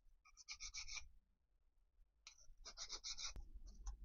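Faint hand deburring of the spindle's machine key: two short runs of quick scratching strokes, about five strokes each, with a few lighter ticks after the second run.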